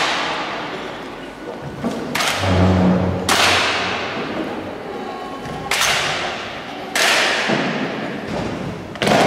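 Five sharp single impacts, one to two and a half seconds apart, each ringing out in a long echo: the drill strikes of a Spanish Legion honour guard handling their rifles.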